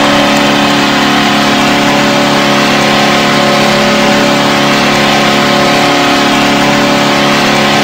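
Nashville Predators' arena goal horn sounding one long, steady, loud blast, signalling a home-team goal.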